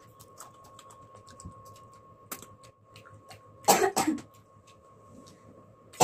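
A person coughs, two rough coughs close together about two-thirds of the way through, amid faint clicks and smacks of eating.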